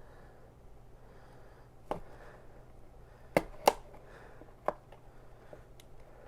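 A knife cutting open trading-card packaging: a few sharp clicks and ticks, the loudest two about three seconds in, a third of a second apart.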